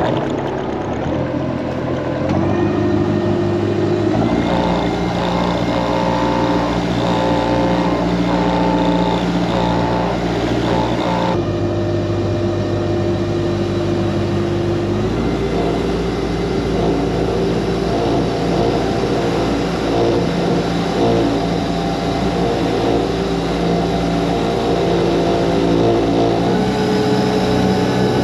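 Boat engine running under way, its note stepping up and down a few times as the throttle changes.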